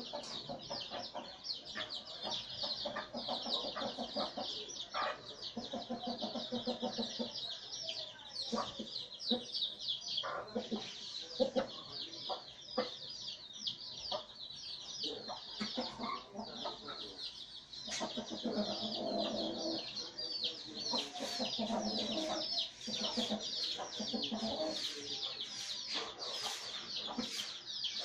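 A brood of chicks peeping constantly, high-pitched, as they feed, with a hen clucking low in two stretches of several seconds.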